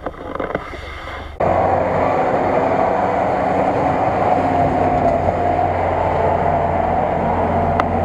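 GAZ-66 truck's engine running hard under load as the truck ploughs through deep mud and climbs a slope, loud and steady. It cuts in abruptly about a second and a half in, after a quieter opening.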